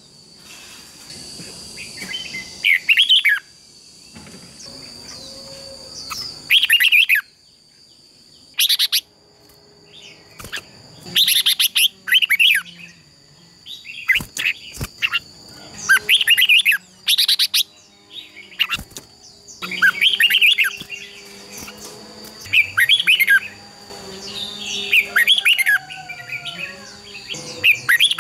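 Red-whiskered bulbuls singing in short, loud, warbling phrases every second or two, the competitive 'fighting' song that bird keepers use to spur their own birds to sing. A steady high thin tone runs underneath.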